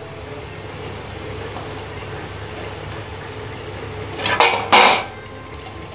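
Oil sizzling steadily as rings of sago-and-rice-flour dough deep-fry in a kadai. About four seconds in come two short, loud metal clatters and scrapes from the slotted spoon and steel vessels as the fried rings are lifted out.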